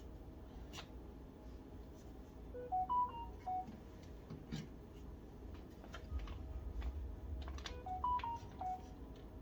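A short electronic chime, a quick run of pure beeps stepping up in pitch and back down, plays twice about five seconds apart. Light clicks and rustles of cable handling run underneath.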